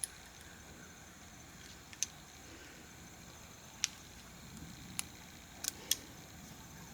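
Faint, scattered sharp clicks and ticks, about six in all, from a short piece of stiff wire being bent into a small hook.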